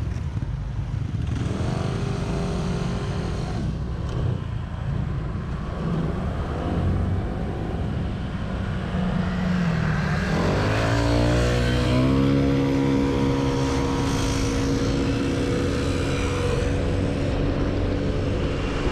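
Motor scooter engine riding along under a steady low wind rumble on a helmet-mounted microphone. About ten seconds in the engine note rises as it accelerates, then holds steady.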